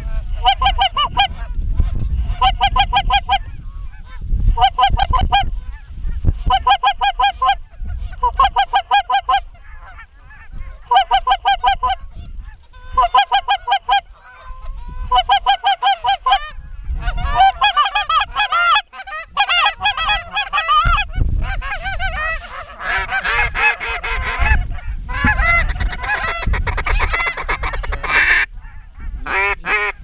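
Canada geese honking: short runs of quick honks about once a second, then from about halfway a flock's many overlapping honks and cackles, louder and denser. A low rumble runs underneath, likely wind on the microphone.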